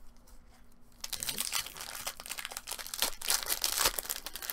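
Foil wrapper of a Topps Chrome baseball card pack being torn open and crumpled by hand. The dense crinkling starts about a second in and stops abruptly near the end.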